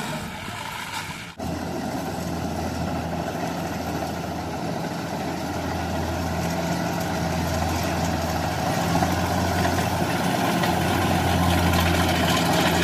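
Rice combine harvester's diesel engine running steadily, a low hum that grows gradually louder. There is a brief drop-out about a second and a half in.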